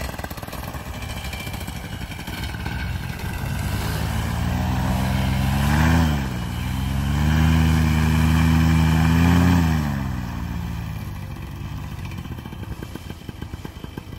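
Vittorazi Moster 185 single-cylinder two-stroke paramotor engine running. It is blipped up about six seconds in, held at higher revs for a few seconds, then throttled back down.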